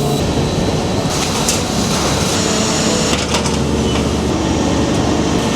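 Denim factory production machinery running steadily, a dense mechanical clatter with a few sharp clicks about one and three seconds in.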